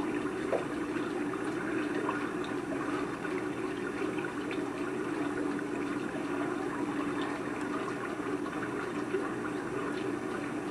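Lake water lapping and sloshing around a German Shepherd wading chest-deep, over a steady hum.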